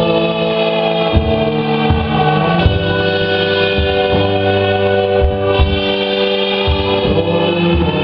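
Live band playing an instrumental passage: held synthesizer and guitar chords over bass and drums. The chord changes about two and a half seconds in.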